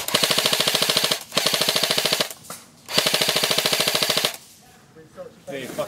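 Airsoft G3 electric rifle firing on full auto: three long bursts of rapid, evenly spaced shots, the last stopping about four seconds in.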